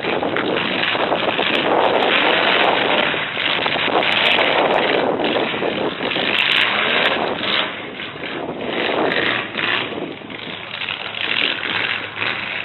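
Engines of full-size demolition-derby trucks running and revving hard, a loud, continuous din of several engines at once.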